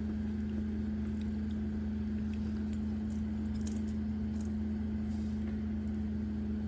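A steady low hum runs throughout, with a few faint, light clicks about three to four and a half seconds in as small screws and parts are handled.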